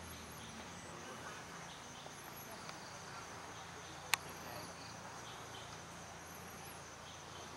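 Forest insects calling: a steady high trill under a short high chirp that repeats about every two seconds. A single sharp click stands out about four seconds in.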